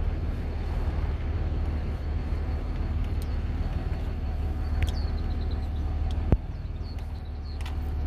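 Cummins turbo-diesel pickup, with the baffle plate removed from its turbo, heard from inside the cab while driving: a steady low engine drone with road noise. A single sharp knock comes a little over six seconds in, and the drone is a little quieter after it.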